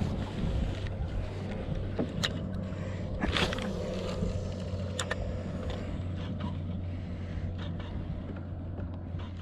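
A steady low motor hum, with a few sharp clicks and knocks.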